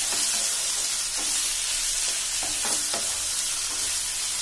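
Chopped tomatoes, peas and onion sizzling in hot oil in a non-stick pan over high flame while a spatula stirs them, knocking against the pan several times, three knocks in quick succession a little past the middle.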